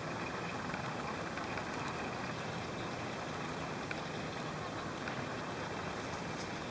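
Steady rushing background noise with a few faint ticks.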